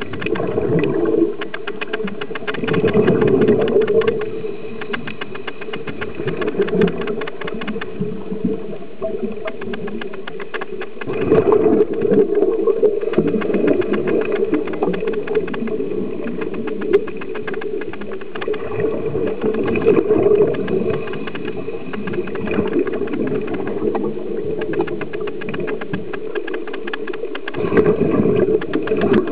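Underwater sound of a scuba diver breathing through a regulator, a constant bubbling rush. Louder surges of exhaled bubbles come every several seconds.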